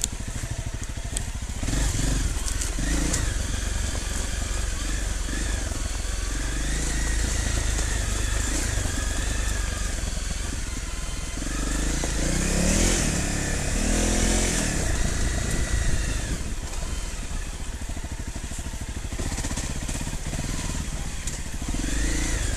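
Off-road motorcycle engine running under load on a rough track, its revs rising and falling with the throttle, with a busier stretch of revving about halfway through.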